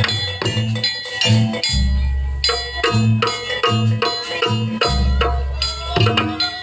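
Live traditional percussion music accompanying a pencak silat dance: deep drum beats in a steady rhythm, with ringing metallic chime tones struck over them.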